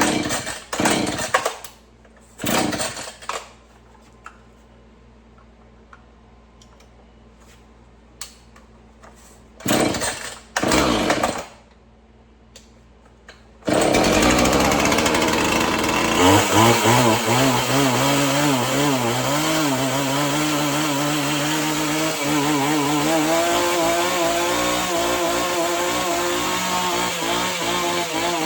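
Husqvarna 445 two-stroke chainsaw being pull-started: a few short pulls of the starter cord, then about halfway through it fires and keeps running at a steady idle, its pitch wavering slightly.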